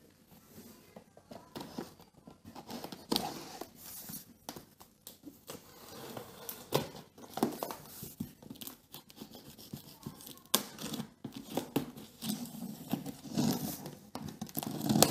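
A small knife slicing through packing tape along the seams of a large cardboard box, in short, irregular scraping and ripping strokes.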